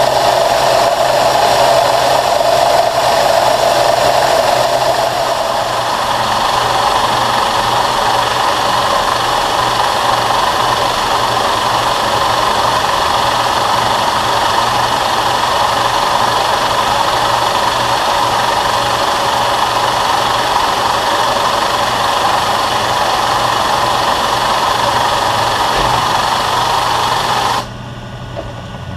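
Steady hiss of compressed air from a Kool Mist nozzle blowing chips clear while a DoAll vertical mill's end mill cuts a keyway in a 1018 cold-rolled steel shaft, over the mill's motor hum. Near the end the air hiss cuts off suddenly, leaving the mill's hum.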